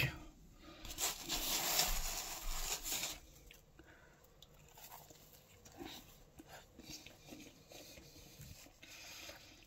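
A rustling scrape for about two seconds as a pizza slice is handled, then a bite into the pizza and quiet chewing with faint mouth clicks.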